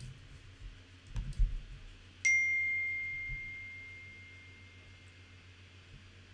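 A single clear ding about two seconds in, one tone that rings out and fades over a few seconds: the Mac Messages app's incoming-message alert (the default 'Note' sound). Before it, a few dull knocks and clicks from working the laptop's keyboard.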